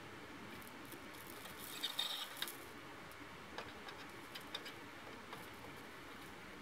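Faint small clicks and ticks of a wire being soldered onto a battery terminal held in pliers, with a short burst of hiss and clicks about two seconds in and a few scattered ticks after.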